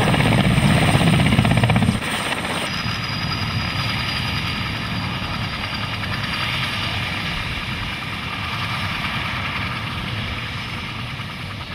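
Mil Mi-8 helicopter's turbine engines and main rotor running on the ground after landing: a loud, low rotor beat that drops abruptly about two seconds in to a steadier, quieter running sound, easing slightly near the end.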